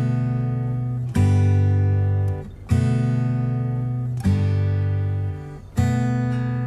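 Background music: acoustic guitar strumming sustained chords, a new chord struck about every one and a half seconds and left to ring.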